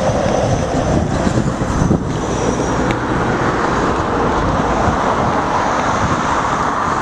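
Steady road-traffic noise from cars passing close by on a busy main road, with wind buffeting the microphone.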